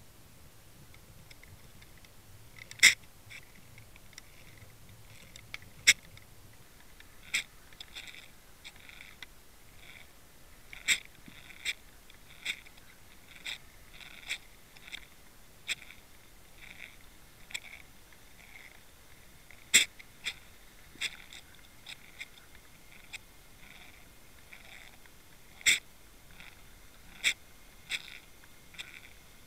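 Irregular sharp clicks, from about one to three seconds apart, with softer ticks between them over a faint hiss, heard underwater through a camera towed on a trolling line.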